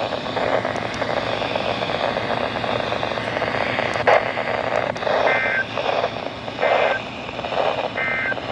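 Steady static hiss from a weather radio receiver between transmissions. Two faint clicks come about four seconds in, then three short electronic beeps, each about 1.3 seconds apart.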